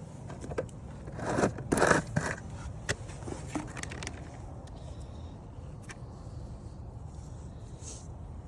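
A short burst of scraping and rustling about a second in, with a few sharp clicks before and after, over a steady low rumble.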